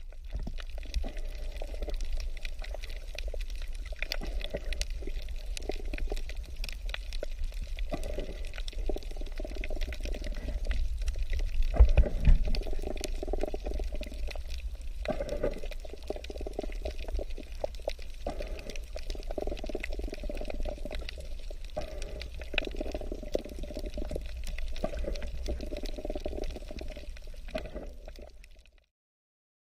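Water heard through an underwater camera: a continuous sloshing, bubbling wash with a deep rumble and scattered sharp clicks, loudest about twelve seconds in.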